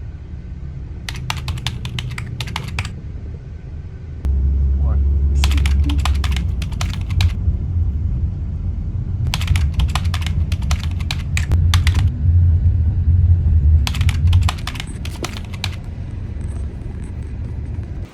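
Four bursts of rapid clicking, like typing on a keyboard, over a low rumble that comes in strongly about four seconds in and drops back near the end.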